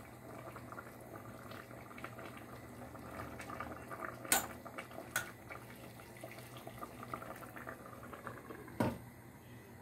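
Spaghetti bubbling at the boil in a stainless steel pot, a steady crackly simmer. A fork knocks against the pot twice around the middle, and a glass lid is set down on the pot near the end with a single knock.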